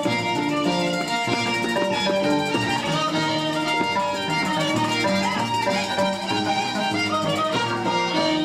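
Live scissors-dance (danza de tijeras) music: a violin playing a continuous tune over a plucked-string accompaniment.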